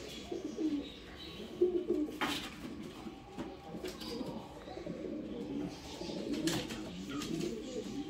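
Domestic pigeons cooing, with repeated low calls overlapping throughout. A couple of sharp clicks sound, one about two seconds in and one near six and a half seconds.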